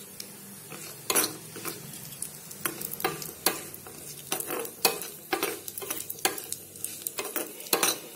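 Steel spoon scraping and stirring cashews and dry coconut pieces as they fry in ghee in a kadai, over a faint sizzle. The irregular sharp scrapes start about a second in, several a second.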